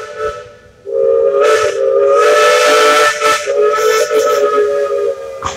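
Steam locomotive whistle blowing: a blast dies away, then a long blast of about four and a half seconds sounds a steady chord with the hiss of escaping steam, and a sharp click comes near the end.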